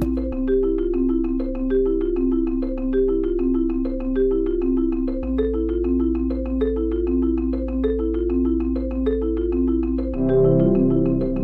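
Background music: a quick, repeating melody of short struck notes over a held bass note, growing fuller about ten seconds in.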